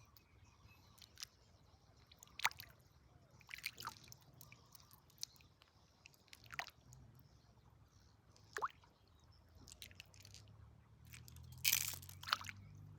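Irregular clicks, crunches and scrapes of river gravel and stones being worked by hand, with some wet squishing and sloshing. The loudest and longest scrape comes near the end.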